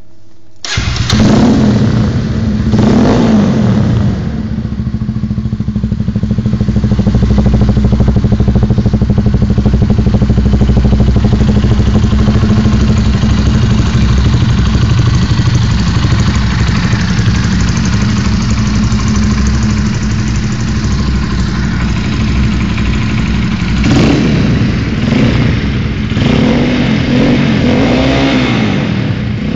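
Honda CBR 125R's single-cylinder four-stroke engine, breathing through a Micron carbon silencer with the db-killer removed. It starts about a second in and revs up and down once, then runs steadily. Near the end it takes a few quick throttle blips. The sound is loud enough to overload a phone microphone.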